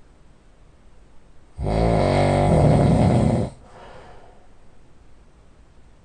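A man snoring heavily in his sleep: one loud, rattling snore about two seconds long starts about a second and a half in, followed by quieter breathing before the next snore.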